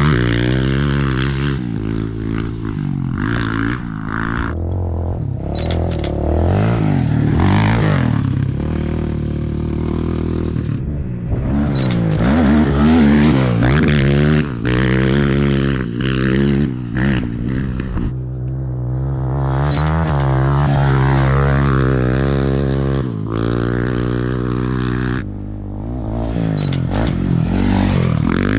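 Off-road racing motorcycle and ATV engines revving hard and shifting gears, the pitch climbing and dropping again and again as the machines pass on the dirt course.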